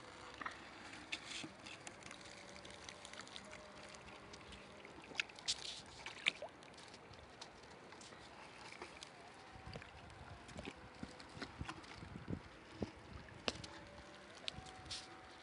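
Faint lapping and trickling of river water at the bank, with scattered short clicks and rustles from handling close to the microphone.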